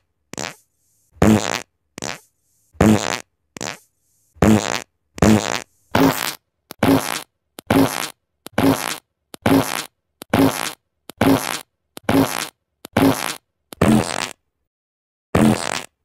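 A string of short farts, about one every 0.8 seconds, each low-pitched and cut off cleanly into silence. There is a longer pause of about a second near the end before the last one.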